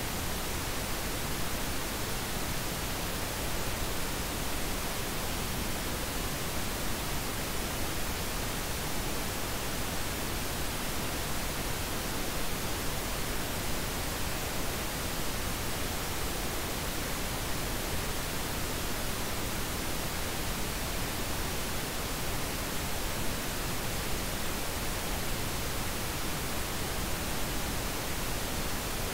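Steady, unchanging hiss of even noise from deep to high pitches: a generated noise track of the kind used in subliminal audio.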